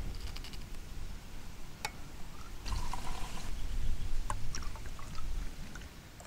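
A drink being poured into a tumbler, a red mixer and then tonic water, for a few seconds from about two and a half seconds in, with a click before it and a few light clicks during it.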